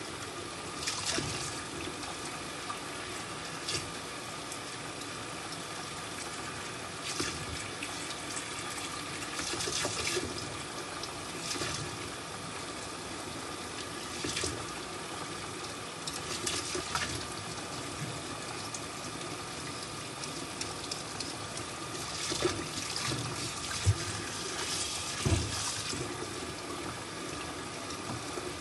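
Kitchen tap running steadily into the sink while potatoes are peeled by hand, with short scraping strokes of the blade every few seconds. Two sharp knocks near the end.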